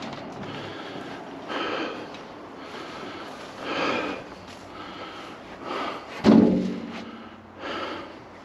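A person breathing hard while pushing a wheelbarrow: short, heavy breaths about every two seconds, with a louder, sharper one a little after six seconds.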